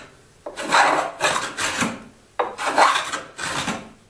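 A Japanese hand plane pulled twice along the edge of a rough-sawn walnut board, each stroke a scraping, rasping cut that lasts a little over a second. The blade is just starting to take shavings off the uneven sawn surface.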